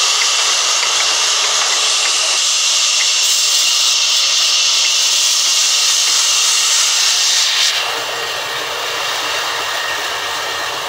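Large sawmill band saw running and cutting through timber, a loud steady high hiss. About eight seconds in the high hiss drops away and the saw runs on more quietly.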